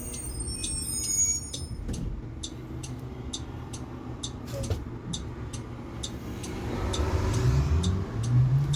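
Cabin noise of a 2018 Blue Bird electric school bus on the road, with a steady ticking about two or three times a second. About seven seconds in, the electric drive motor's whine rises as the bus accelerates.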